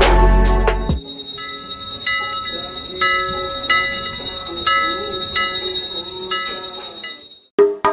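Music with a deep bass beat cuts off about a second in. Bell-like chimes follow, struck roughly once a second over a thin, steady high ringing. Percussive music starts again near the end.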